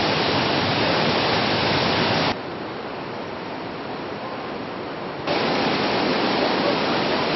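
Swollen monsoon floodwater rushing in a steady, loud, noisy wash. It drops abruptly to a softer rush about two seconds in and comes back up just as suddenly about five seconds in.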